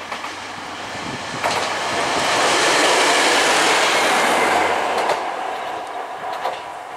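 KTR700-series diesel railcar passing close by. Its engine and wheels on the rails grow louder to a peak about three seconds in, then fade, with a few wheel clicks over rail joints as it moves away.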